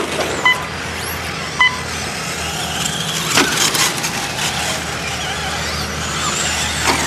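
Electric radio-controlled short course trucks racing on dirt: motors and drivetrains whining high, rising and falling as they accelerate and brake. Two short electronic beeps sound about half a second and a second and a half in, and a brief rattle about three and a half seconds in.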